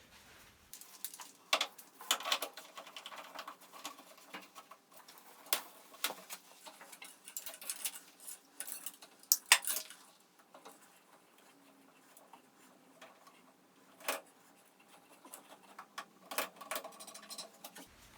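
Scattered clicks, taps and light rattles of hands fitting a welding torch and a spool of gasless welding wire into a MIG welder, with a few sharper knocks.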